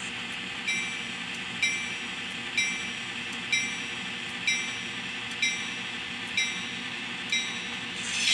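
Sound from a LokSound Micro decoder in an N scale MP15 diesel switcher model, played through its tiny cube speaker. The diesel engine runs steadily while the locomotive bell rings evenly, about once a second.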